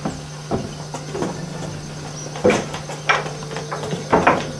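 Irregular knocks and thumps on wood in a wooden cattle pen, about eight in all. The loudest come about halfway through and as a close pair near the end.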